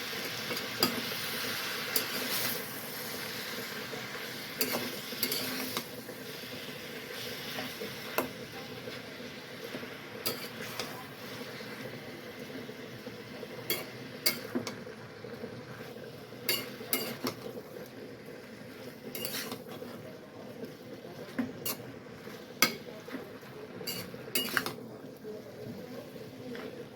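A cooking utensil stirring and scraping potatoes and spinach in a pan, clinking irregularly against the pan, over a steady low sizzle of the cooking greens.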